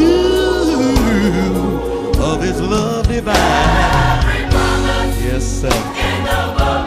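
Gospel singing: a lead voice slides up into a held note at the start, with group voices and steady instrumental accompaniment underneath.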